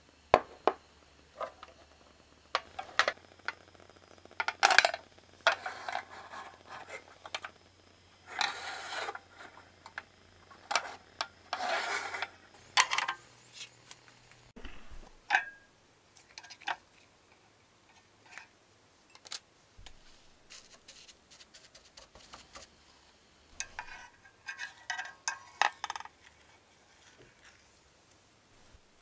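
Scattered clicks, taps and short scraping sounds of a square copper tamagoyaki pan being handled while a thin egg sheet cooks in it and is lifted out. The louder knocks come in the first half, with another cluster of light clatter near the end.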